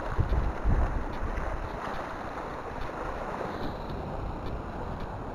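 Sea washing against shore rocks, with wind buffeting the microphone; a few heavy low gusts come in the first second.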